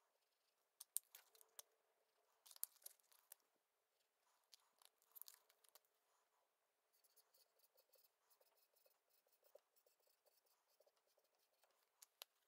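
Faint scratching strokes of a felt-tip whiteboard marker writing on a whiteboard, with a few sharper scratches in the first half and then a fainter run of fine ticks. Very quiet overall.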